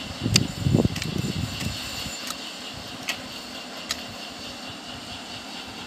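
Hand hoes chopping into and scraping dry, stony soil: a few dull thuds with sharp clicks in the first second or so, then only sparse light ticks.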